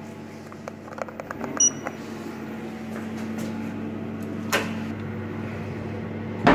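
Inside a passenger lift car: a steady hum under a cluster of small clicks and one short beep about a second and a half in. A sharp click comes as a floor button is pressed, and a thump sounds at the very end.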